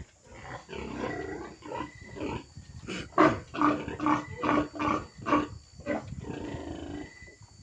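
Pigs grunting and squealing, with a run of loud, short calls about two a second in the middle.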